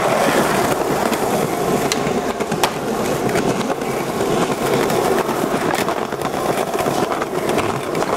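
Skateboard wheels rolling over pavement: a steady, loud rumble broken by a few sharp clicks.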